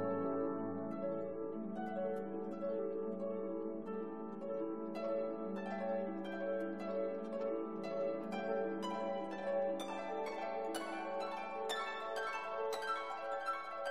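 Background music: quick plucked string notes over held orchestral chords, the plucking growing busier and brighter from about five seconds in.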